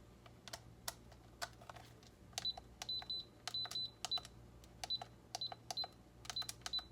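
Buttons clicking as they are pressed on an HPI MTX 400 radio transmitter. Scattered clicks at first, then from about two seconds in most presses answered by a short high beep, in an uneven run of a dozen or so.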